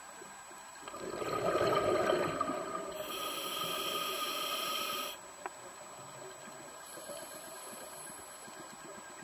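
Scuba diver breathing through a regulator underwater: a rush of exhaled bubbles starting about a second in, then a hissing inhalation that cuts off sharply about five seconds in.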